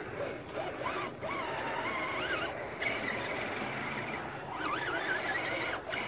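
Electric motor and gears of an Axial SCX10 RC crawler whining, the pitch rising and falling again and again as the throttle is worked, with quick back-and-forth bursts about five seconds in. Its wheels are churning through muddy water.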